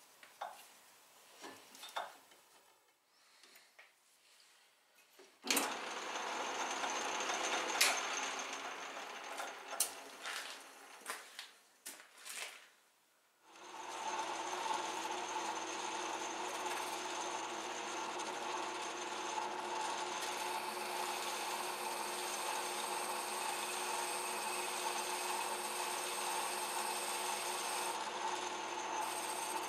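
A few clicks as a chuck key tightens a part in the chuck of an Atlas metal lathe. About five seconds in the lathe starts abruptly and runs with the tool cutting the part. After a brief drop near thirteen seconds it runs on steadily with a constant hum and whine as it turns the part's outside surface.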